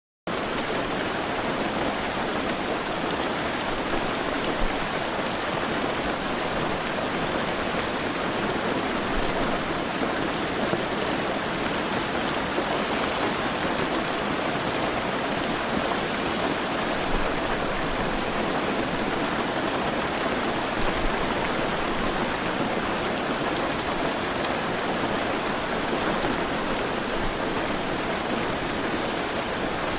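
Heavy rain falling steadily, a dense even hiss with occasional slightly louder splashes.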